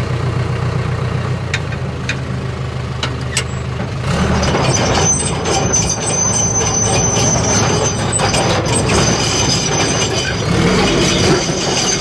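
Pickup truck engine running steadily in the cab, with a few sharp clicks. About four seconds in, a louder, rougher rumbling noise with a high, steady squeal takes over.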